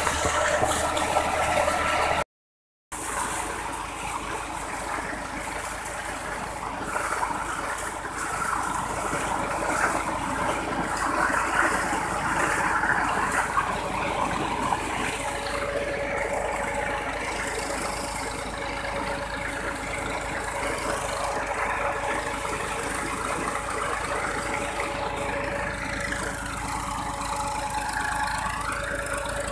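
Engine driving a tube well pump running steadily, with water gushing from the outlet pipe. The sound drops out briefly about two seconds in.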